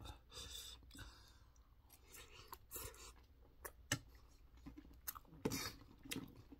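A man chewing a mouthful of soupy rice, with scattered soft mouth clicks and smacks. A single sharp clink of a metal spoon against a metal bowl comes about four seconds in.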